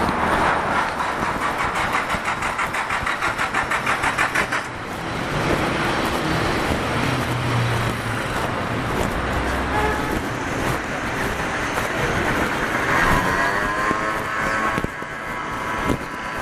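City street traffic: motor vehicles passing, with a fast, even pulsing for the first four or five seconds and a brief wavering tone about two-thirds of the way through.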